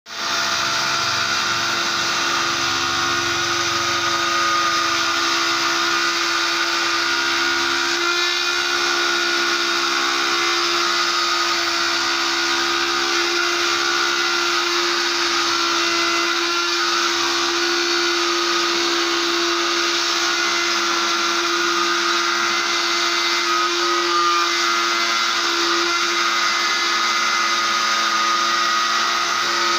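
CNC machine running steadily, its spindle motor giving a constant whine over a dense mechanical noise.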